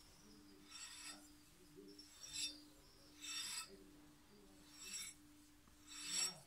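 Curved steel blade of a hand-forged herb chopper drawn along a leather strop in five stroking swishes, about a second or so apart. A faint steady hum lies underneath.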